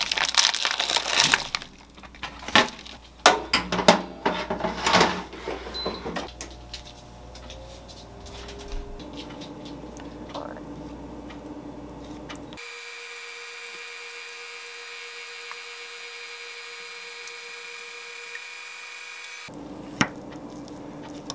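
Plastic food packaging crinkling and rustling as a bag of frozen breaded chicken is opened and handled. A quieter stretch follows, with a steady hum for several seconds and then a single sharp click.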